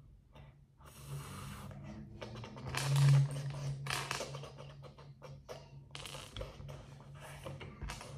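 Loose plastic LEGO bricks clattering and clicking as a hand rummages through a pile of them. A low steady hum runs underneath and swells briefly about three seconds in.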